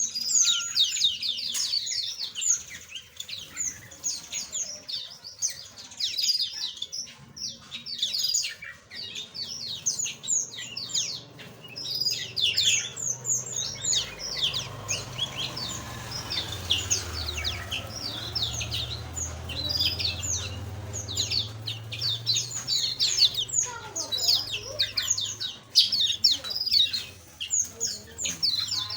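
Many small aviary birds chirping together, a dense, continuous chatter of quick high chirps. A low hum joins in under them for several seconds in the middle.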